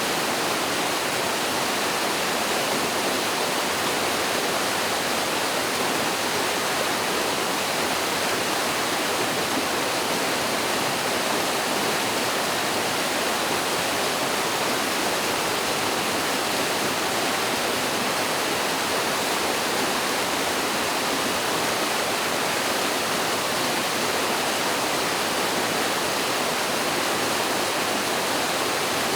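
Mountain stream pouring over a small waterfall: a steady, unbroken rush of water.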